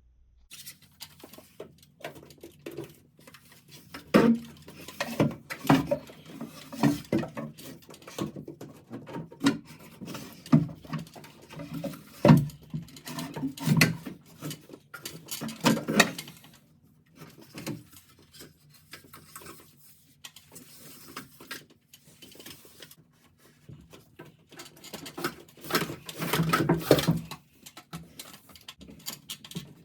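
Irregular knocks, clicks and rustling from hands working electrical cable and fittings, with a faint low hum underneath.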